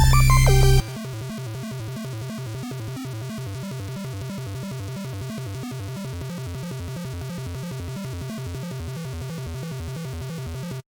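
Electronic background music: a loud bass-heavy passage that drops after about a second to a quieter, evenly pulsing section, then cuts off to silence just before the end.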